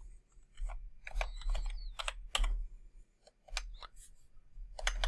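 Computer keyboard being typed on: irregular key clicks coming in short clusters.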